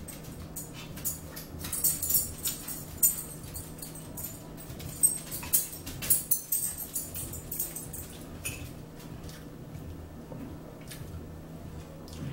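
Metal fork clinking and scraping against a salad bowl while eating. A busy run of sharp clicks and jingly ticks from about two to seven seconds in, then only a few clicks, over a steady low hum.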